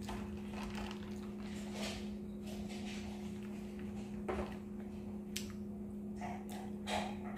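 A steady low hum, with a few faint knocks and rustles, the clearest about four seconds in.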